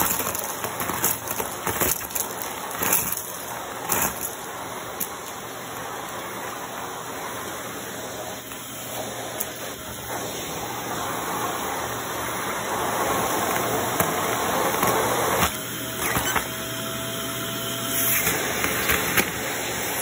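Vacuum cleaner running through a hose and crevice tool, sucking up sequins, confetti, beads and fluff, with scattered clicks and rattles of debris going up the hose. About three-quarters of the way in, a steady whistle sounds for about two seconds, then stops.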